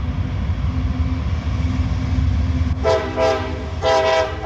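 Freight train's diesel locomotive running past with a steady low rumble, then its air horn sounding short blasts from about three seconds in.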